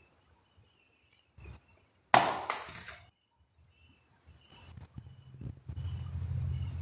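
Two sharp impacts about half a second apart, the first the louder, over steady insect trilling; a low steady hum comes in near the end.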